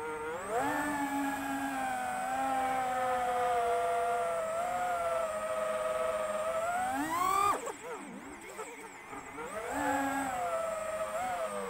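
Electric motors and propellers of the Skyeliner HD FPV drone whining, picked up by its onboard camera. The pitch glides up and down with the throttle, drops sharply about seven and a half seconds in, then climbs again.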